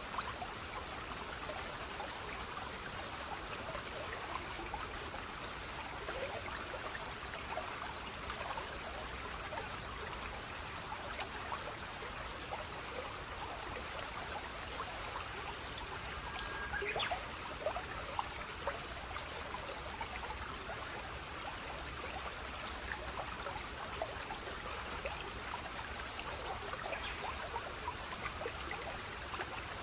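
Water trickling and babbling steadily in a small stream, with one brief brighter sound about halfway through.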